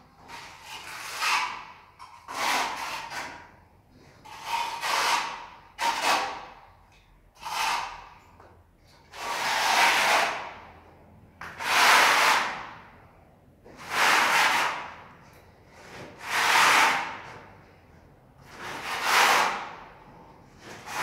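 Steel notched trowel scraping tile adhesive across a wall in repeated strokes, about one every one to two seconds. Each stroke is a scrape lasting up to a second, and the strokes grow longer and louder about halfway through.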